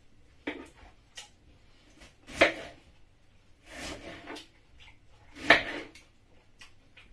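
Knife cutting pineapple on a wooden cutting board: irregular knocks of the blade against the board, the loudest two about two and a half and five and a half seconds in, with a longer scraping cut around four seconds.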